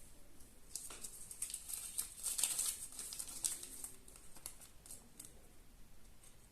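Foil wrapper of a Kinder Surprise egg crinkling and rustling as it is unwrapped by hand, in a dense run of small crackles that peaks about two and a half seconds in and then thins out.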